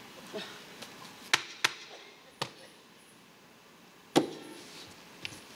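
A few sharp, unevenly spaced knocks, the loudest about four seconds in.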